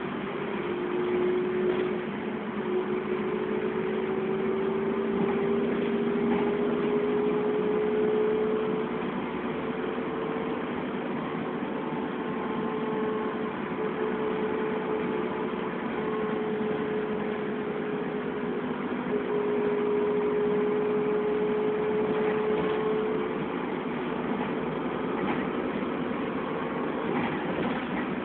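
Dennis Trident double-decker bus under way, heard from the upper deck: a steady engine and road rumble with a whine that rises in pitch over the first several seconds and then holds fairly level.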